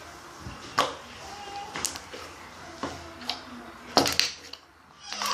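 Irregular light taps and knocks, about half a dozen, the loudest pair about four seconds in.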